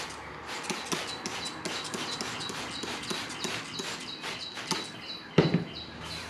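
Trigger spray bottle squirting cleaner onto a boat seat cushion in quick repeated pulls, about three a second. A single thump comes about five seconds in.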